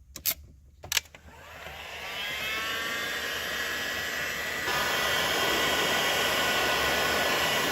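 A few sharp clicks, then a heat gun switched on: its fan motor spins up with a rising whine and runs steadily, getting louder about two-thirds of the way in. It is shrinking heat-shrink tubing over a freshly crimped ring-terminal connection.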